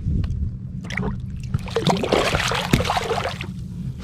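Water splashing and trickling at a kayak, strongest for about two seconds midway, over a steady low hum.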